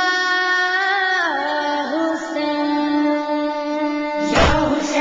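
A boy's voice singing a noha lament, holding one long note that slides down in pitch about a second in and is then held lower. Near the end heavy thumps start, about one a second.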